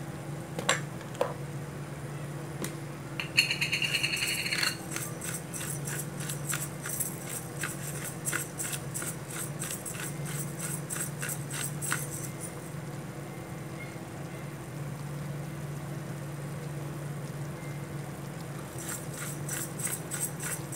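Salt and pepper being added by hand over a wok of pork: long runs of rapid, dry ticking with a brief scratchy sound near the start, over a steady low hum.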